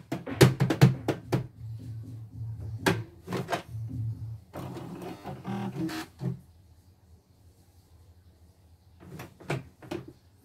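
Clicks and knocks from hands handling a computerised embroidery machine's plastic housing. They come in quick clusters near the start and again just before the end, with a quiet spell of a few seconds in between.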